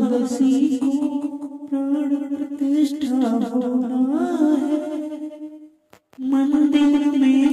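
Devotional song: a voice singing a melody over musical accompaniment. It cuts out briefly about six seconds in and starts again.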